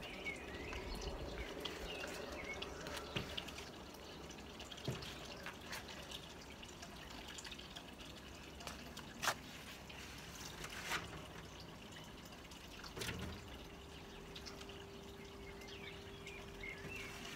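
Faint trickle and drip of a small garden water feature, with birds chirping now and then. A few light clicks and knocks of seedling pots being set down on a metal potting bench, and a faint steady tone for a few seconds near the end.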